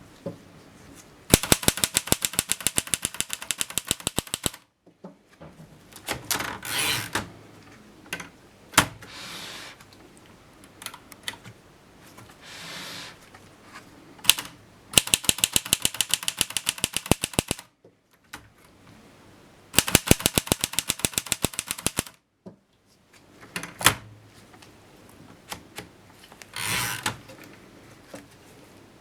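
A 1939 Erika M manual typewriter being typed on: three runs of rapid key strikes, about seven a second, each lasting two to three seconds, with scattered single clacks and short mechanical rasps between the runs.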